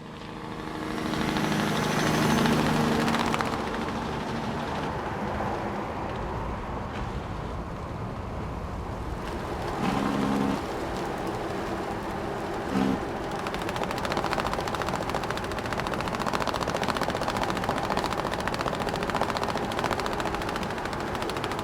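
A large truck driving. Its engine hum is clearest in the first few seconds, then gives way to steady road noise and a rapid, continuous rattling and flapping of the tie-down straps on its load. Two short low blasts sound about ten seconds in and again near thirteen seconds.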